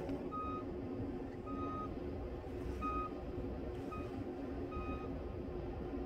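Snow plow's reversing alarm beeping, about five short beeps roughly a second apart, as it backs up. The plow's engine runs steadily underneath.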